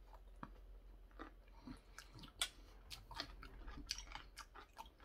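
Quiet close-up mouth sounds of a person eating a spoonful of curry rice: irregular wet chewing and lip smacks, with one sharp click a little over two seconds in.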